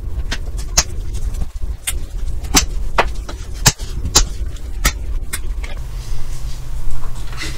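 Irregular sharp clicks and knocks of gloved hands and a plastic pry tool working on a Lenovo IdeaPad S740 laptop's bottom cover, over a steady low rumble. About two-thirds of the way through the clicks stop and a steady low hum with hiss remains.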